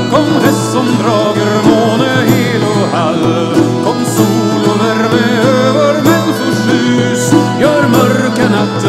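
Lively folk dance tune: a Swedish bagpipe (säckpipa) plays an ornamented melody over its steady drone, with Irish bouzouki, frame drum and tambourine keeping the rhythm.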